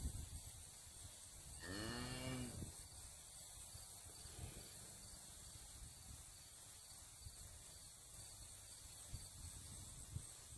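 A cow in labour gives one short low moo, under a second long, about two seconds in, over a low rumble of wind on the microphone.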